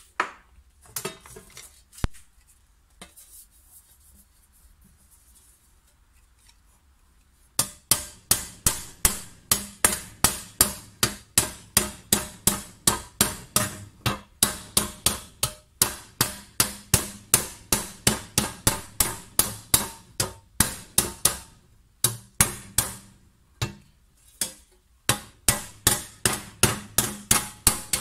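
Hammer striking a copper tray as it is raised by hand: a quick, even run of ringing metallic blows at about three a second, with a couple of brief pauses. The blows begin about seven seconds in, after some faint handling knocks.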